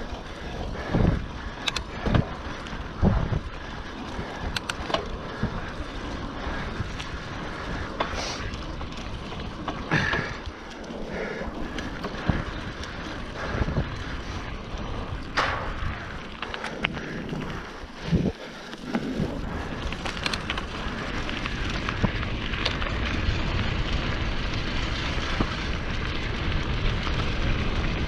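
Mountain bike riding over a rough trail: a steady rush of tyre noise with frequent knocks and rattles of the bike, and wind on the microphone growing louder over the last third.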